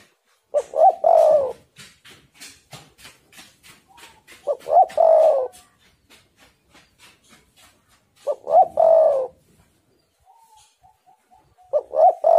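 Spotted dove cooing: four phrases about four seconds apart, each a couple of short notes and then a longer falling coo, the last starting near the end. Faint rapid ticking in the gaps between phrases.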